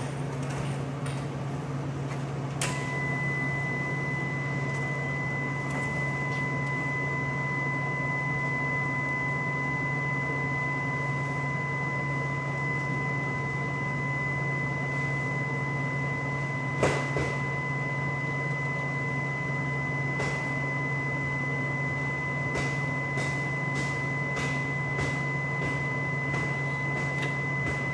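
MIG welder's wire-feed motor running with a steady whine, starting a few seconds in, as the gun trigger is held to push newly loaded wire through the gun lead. A steady low hum sits underneath, and there is a single knock about two-thirds of the way through.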